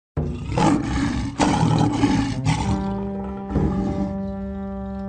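Lion roaring in a dramatic intro sting: rough roars over the first two and a half seconds, then a held brass chord, with another short roar over it about three and a half seconds in.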